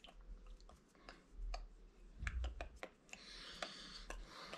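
Faint, irregular light clicks and tapping handling noises, with a dull low bump a little over two seconds in.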